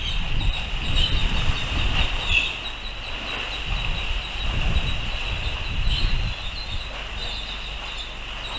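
Wind buffeting an outdoor microphone, an uneven gusting rumble, over a steady high hiss with small, faint chirps in it.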